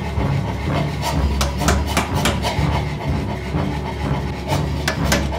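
Hammer blows driving a hole punch into a red-hot steel hammer head on an anvil, punching the eye for the handle: a quick run of sharp strikes in the first half, a pause, then three more near the end. A steady low rumble sits underneath.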